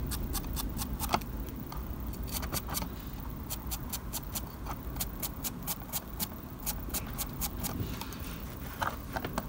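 A paintbrush dry-brushing paint over the ridged plastic roof tiles of a model building: a quick, uneven run of short, dry scratchy strokes, roughly three or four a second, over a low rumble.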